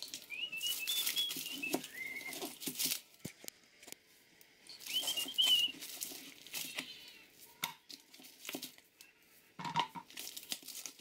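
A person whistling a tune, sped up so it comes out high and chirpy, in two short snatches. Under it come crinkling of plastic packaging and small knocks of kitchen things as a food processor bowl is handled.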